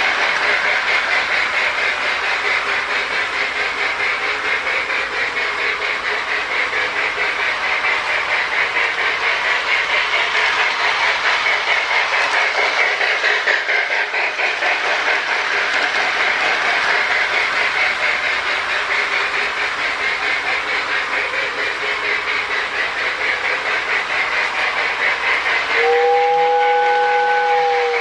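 Marx toy steam locomotive running, its Sound-O-Power tender giving a loud, fast chuff. Near the end a two-note whistle starts to blow.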